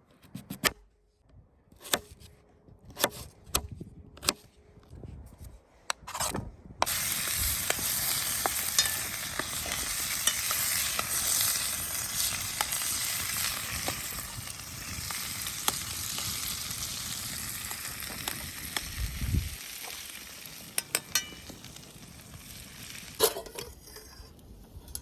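Food sizzling in a hot pan: after a few light knocks and clicks, a loud frying hiss starts suddenly, holds for more than ten seconds, then slowly dies down.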